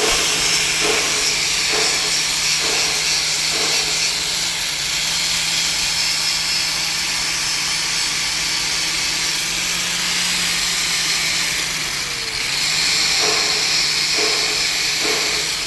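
Electric welding arc crackling and hissing steadily, with a faint machine hum underneath.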